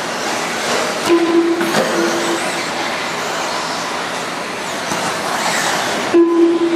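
Electric radio-controlled racing trucks running on an indoor dirt track: a steady whirr of motors and tyres. Short flat beeps sound a few times, about a second in, near two seconds and near the end.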